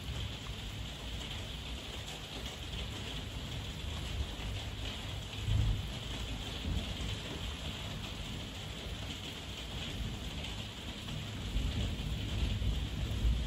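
Heavy rain falling steadily, a dense even hiss, over a low rumble of thunder that swells briefly about five seconds in and builds again near the end.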